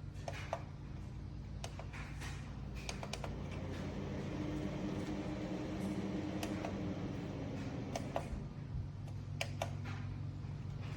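Register booster fan running with a steady low hum and a rushing of air that swells in the middle, with scattered light clicks.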